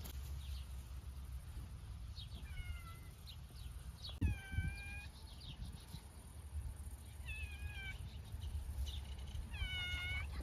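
A cat meowing four times, each call dropping in pitch and then levelling off, over a steady low rumble.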